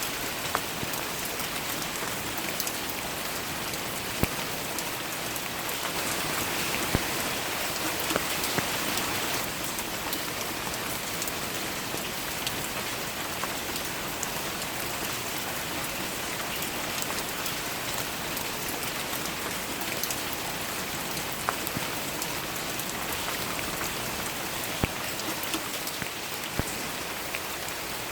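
Steady rain falling on leaves and surfaces, an even hiss with scattered sharper drips.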